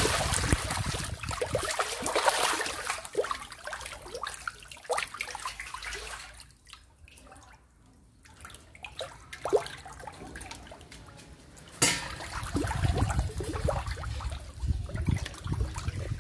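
Catfish thrashing and splashing at the surface of a cement tank. The splashing dies down to drips and small splashes about halfway through. It picks up again after a sharp knock near the end.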